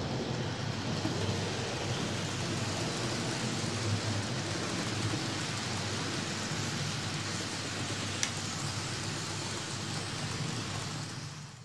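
Model train running on layout track: a steady rolling rumble and rattle, with a faint click about eight seconds in.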